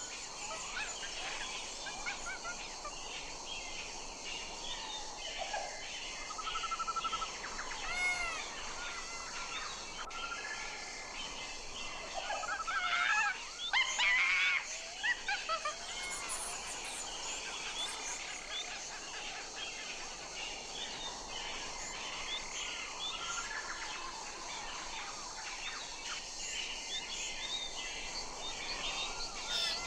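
Albatross colony: many birds calling at once in overlapping calls over a steady hiss, with a louder burst of calls about 12 to 15 seconds in.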